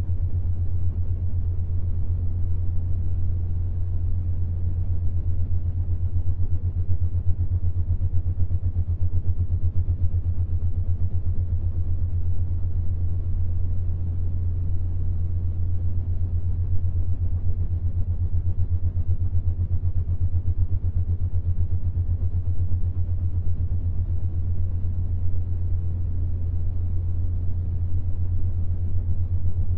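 Steady low binaural-beat hum pitched around 100 Hz, with a fine rapid flutter. It is meant to make a 7.83 Hz beat, the Schumann resonance, between the ears.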